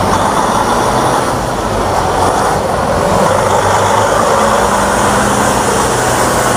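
Steady rushing hiss of water being sprayed to wash mud off a toy, with a faint low hum underneath.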